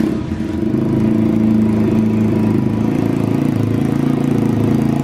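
Pitgang 140XD pitbike's four-stroke single-cylinder engine running steadily on its first start after assembly.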